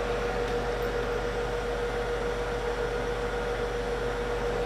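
Steady fan or blower whir with a constant mid-pitched hum and no change throughout.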